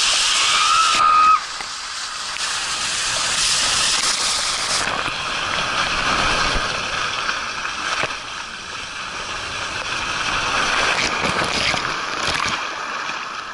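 Steady hiss of rushing water and air while riding down a water slide, with splashing near the end as the rider hits the water at the bottom.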